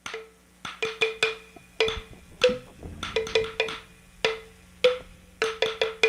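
Hollow wooden knocks like a wood block being struck, about seventeen sharp raps in an uneven, quickening-and-pausing rhythm, each with a short ringing note.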